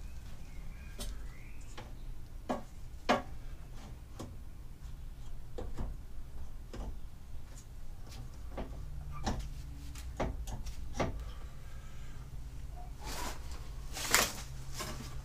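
Irregular clicks and knocks of parts being handled as a replacement car air-conditioning condenser is worked into place, with two sharper knocks about three seconds in and near the end, over a steady low hum.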